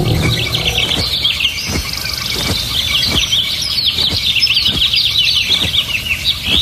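Many small birds chirping in quick, overlapping calls, with a soft regular knock about every three quarters of a second underneath.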